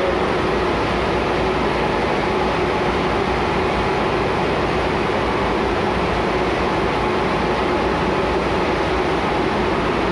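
Marine diesel machinery running steadily in a tugboat's engine room: a loud, constant drone with a steady hum and no change in speed, heard from the engine control room.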